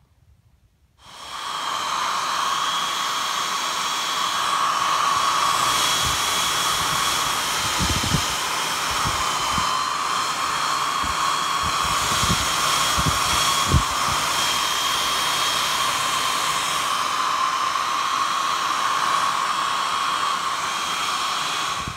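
Handheld hot-air blower running steadily with a steady whine over its blowing, switched on about a second in, heat-setting fresh leather dye on shoes. A few soft low knocks come midway.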